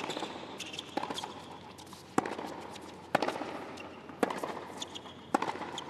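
Tennis rally: sharp racquet-on-ball hits about once a second as the players trade groundstrokes, over a low background of the crowd and court.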